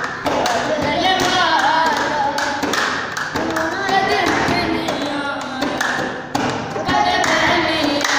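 A boy singing, accompanied by hands drumming on a wooden school desk and by hand clapping.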